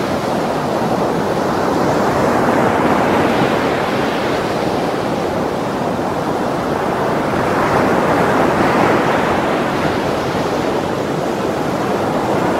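Heavy ocean surf in a strong swell: a steady wash of breaking waves and churning white water that swells a little louder twice.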